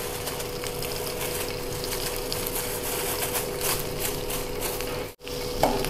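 Tempe frying in hot oil in a wok: a steady sizzle with scattered small crackles as pieces are dropped in.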